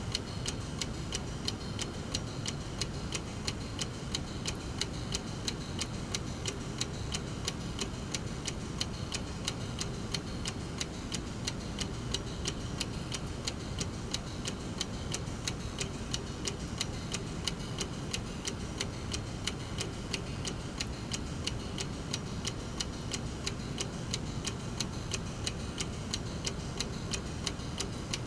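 Brass mechanical clock movement ticking steadily, its escapement giving an even run of sharp ticks.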